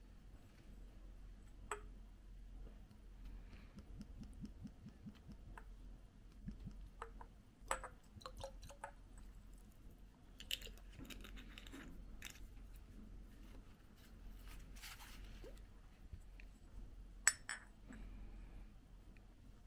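Quiet, scattered clinks and taps of tableware, the sharpest a few seconds before the end.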